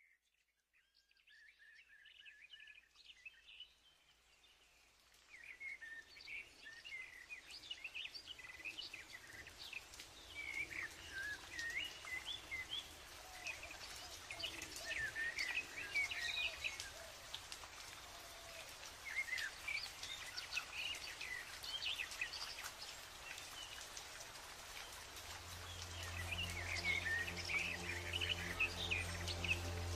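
A chorus of many songbirds chirping and trilling over a steady hiss, fading in over the first few seconds and growing louder. Near the end, music with a low held note comes in underneath.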